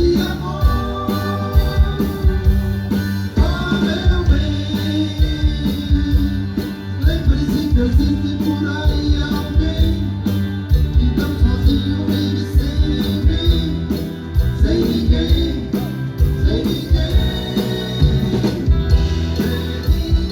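Live band playing an upbeat dance song, with a drum kit keeping a steady beat under bass and melodic lines.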